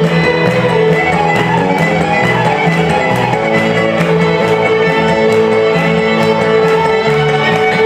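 Live country string band playing a fast instrumental: two fiddles bowing the lead over upright bass and electric guitar, with a steady beat.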